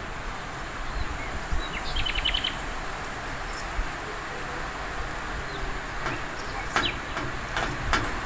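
Strong wind blowing as a steady rush with low buffeting. About two seconds in, a bird gives a quick trill of repeated chirps, and a few sharp clicks come near the end.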